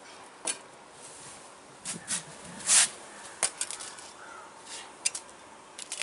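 Metal perforated ladle clinking and scraping against a metal cooking pot as thick curry is stirred: a handful of scattered sharp clinks, the loudest about three seconds in.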